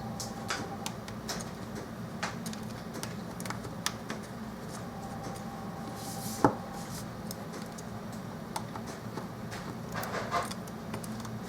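Scattered light clicks and taps of small repair tools on phone parts, with one sharper click about six and a half seconds in, over a steady low hum.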